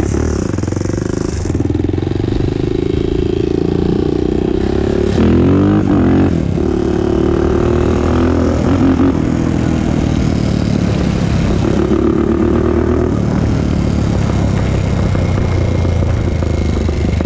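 2001 Honda TRX400EX quad's single-cylinder four-stroke engine running steadily while being ridden, its engine speed rising and falling about five to six seconds in.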